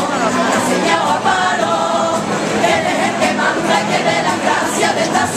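A carnival chorus of many voices singing a Spanish song together.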